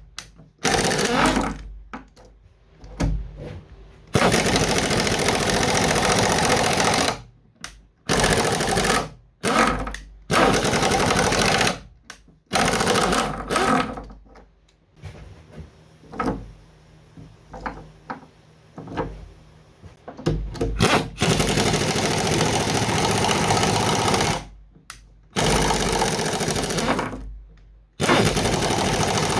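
Power driver spinning a threaded bolt into drilled holes for piano perimeter bolts, running in repeated bursts of a few seconds with short pauses between them.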